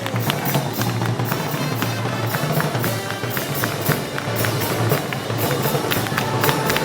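Festival band music for Moros y Cristianos, carried by a steady beat of drums and cymbals.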